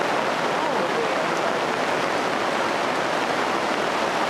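Heavy rain falling, a steady, dense hiss.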